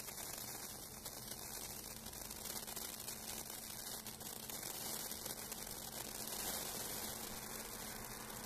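Senko hanabi sparkler throwing branching sparks from its glowing bead: a faint, steady crackling hiss.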